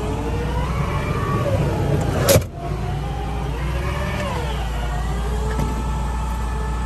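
The Ram 5500's 6.4-litre gas V8 idling as a steady low hum, with a sharp knock about two seconds in. An electric power-window motor whines through much of the rest, its pitch gliding and then holding steady.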